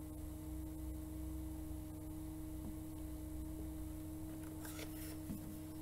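Quiet room tone with a steady low electrical hum and no other clear sound; a faint short sound comes near the end.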